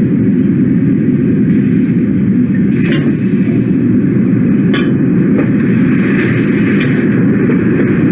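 Steady, loud low rumbling noise with no speech. Two light glass clinks come about three and five seconds in, as a bottle is tipped and poured into a glass.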